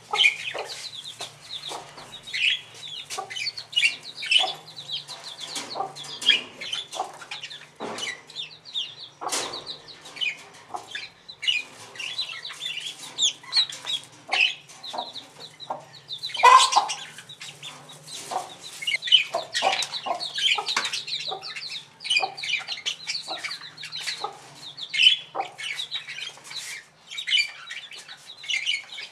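Poultry calling: a continuous run of short, high peeps with some lower clucks mixed in, and a few sharp clicks.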